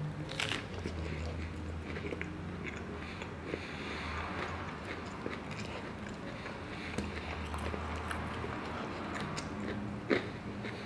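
A person chewing a mouthful of Wendy's spicy fried chicken sandwich, with small scattered mouth clicks and one sharper click about ten seconds in. A low steady hum runs underneath.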